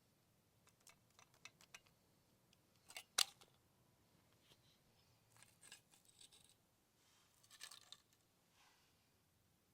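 Spring mousetrap: a run of small clicks as it is handled, then one sharp snap a little over three seconds in. Two more clusters of clicking and rattling follow.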